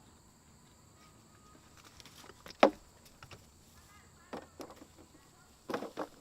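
Quiet outdoor background broken by one sharp click or knock about two and a half seconds in, with a few softer knocks near the end.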